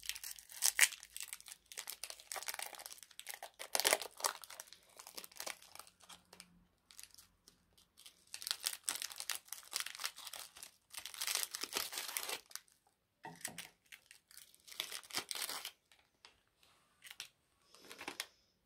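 Foil wrappers of Kinder Cards biscuits crinkling and tearing as they are opened by hand, in bursts with short pauses between.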